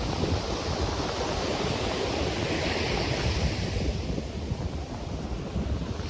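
Ocean waves breaking on a beach, a wash of surf that swells about halfway through and then eases, with wind rumbling on the microphone.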